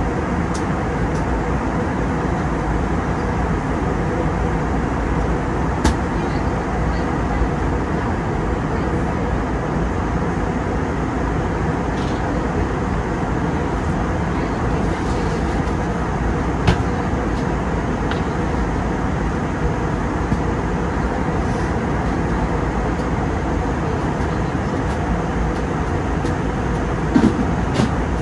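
Steady cabin noise of an Airbus A320neo in flight, the hum of the engines and rush of airflow heard inside the cabin, with a few faint clicks.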